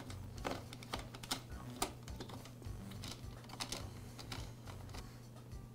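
Scattered light clicks and taps of hard plastic parts and small screws being handled as the air filter base and carburetor are fitted onto a backpack blower's two-stroke engine.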